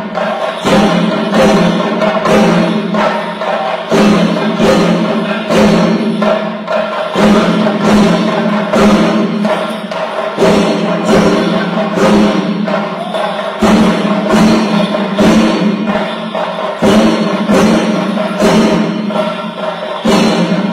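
Music for the Puli kali tiger dance: a fast, steady drum beat over a sustained low tone.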